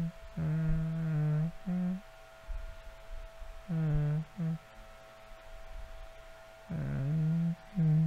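A man's low voice humming a slow, soft tune in several short phrases, with pauses between them.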